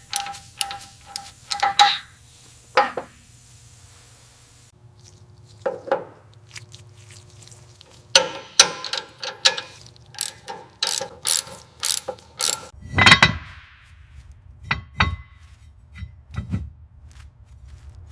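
Irregular mechanical clicks and knocks of hand-tool work, thickest in the middle, with a louder, longer rasping clatter about 13 seconds in, over a faint low hum.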